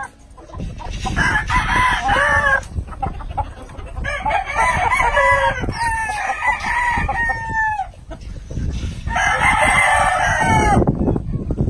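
Roosters crowing: a crow about a second in, a long stretch of crowing from about four to nearly eight seconds in, and another crow near the end, over a steady low background rumble.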